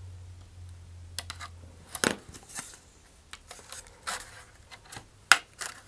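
Hobby knife trimming the edge of a slot in a thin vacuum-formed plastic fairing, then a balsa fin being pushed into the slot to test its fit: a scatter of small clicks and scratches, the sharpest about five seconds in.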